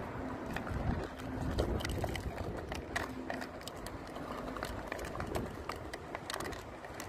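Small dog eating out of a plastic bowl: irregular crunching and clicking, over a low rumble.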